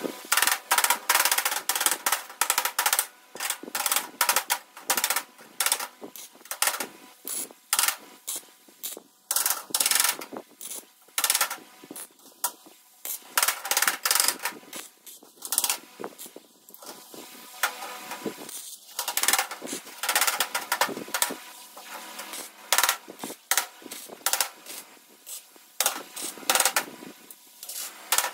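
Electric arc welder tacking a sheet-metal floor pan to a steel tube frame: short, irregular bursts of crackling arc, one after another, with brief pauses between tacks.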